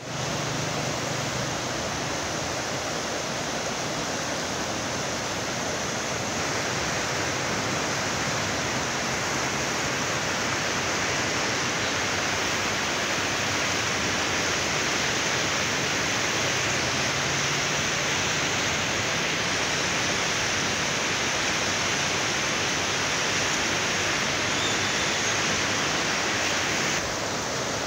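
Steady rushing of a wide, muddy river in flood, its fast current producing a continuous noise of water.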